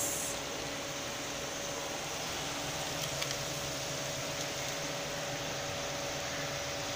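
Steady hiss with a faint, even hum and no change in level, broken only by a faint tick or two about three seconds in.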